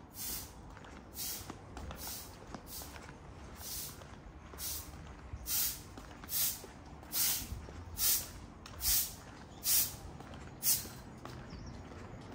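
Footsteps scuffing along at a walking pace, a short gritty swish about every 0.8 s, getting louder in the second half. A faint low traffic rumble runs underneath.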